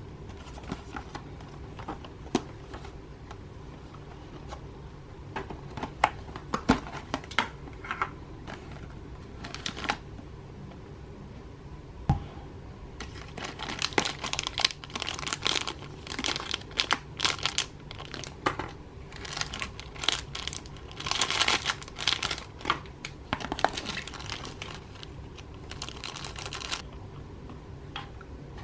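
Slime being squished and stretched by hand, giving irregular crackling, popping clicks that come in sparse single pops at first and turn into dense crackling clusters about halfway through.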